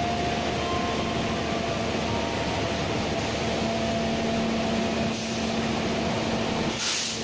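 Diesel-electric locomotive hauling passenger coaches slowly through a station platform, its engine running with a steady hum. A short hiss comes near the end.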